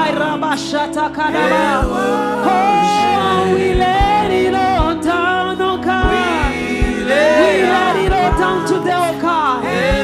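Live gospel worship music: sung vocals over sustained instrumental chords, with a soft kick drum beat.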